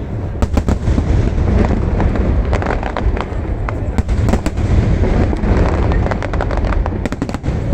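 Aerial fireworks display going off in rapid succession: many sharp bangs and crackles over a continuous deep rumble of shell bursts.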